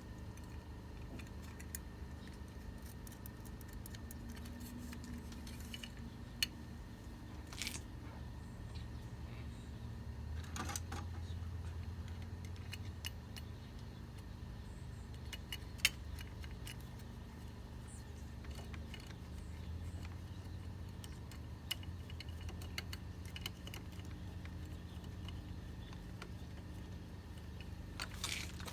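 Scattered light metallic clicks and clinks as small metal parts and hand tools are handled, with a few brief scrapes, over a low steady hum.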